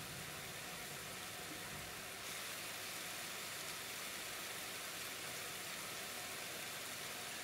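Steady hiss of falling rain, a little brighter from about two seconds in.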